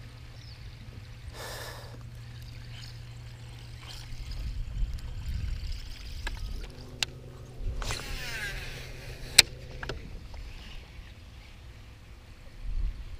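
Steady low hum from a bow-mounted electric trolling motor, with baitcasting reel sounds: a whirring that falls in pitch about eight seconds in, as the spool spins out on a cast, and a few sharp clicks.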